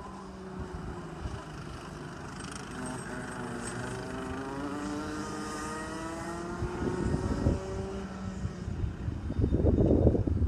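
Rotax Max 125cc two-stroke kart engines racing around the circuit at a distance, their pitch rising as the karts accelerate. A louder low rumble comes in near the end.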